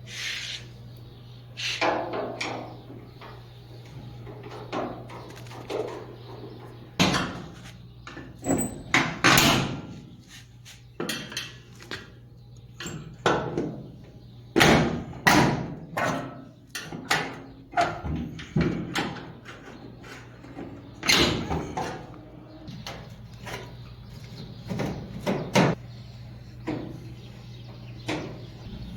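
Irregular knocks, taps and clatters of hands and tools at work on a Maytag dryer's cabinet, a couple of dozen in all, some loud, over a steady low hum.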